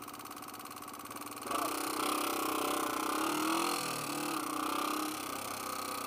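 Yamaha TW200's single-cylinder four-stroke engine ticking over steadily, then about a second and a half in it gets louder as the bike pulls away, its note rising and falling. The rider says this engine badly needs a valve adjustment.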